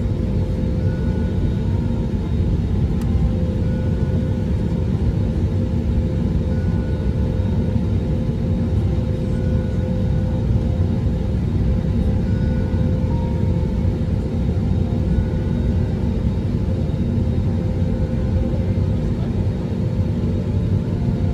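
Airbus A320 cabin noise while taxiing: a steady low rumble from the jet engines and airframe, with a few steady hums. A faint short beep repeats about every three seconds.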